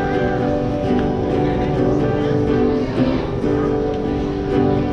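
Acoustic guitar strummed in an instrumental passage, its chords changing every second or two.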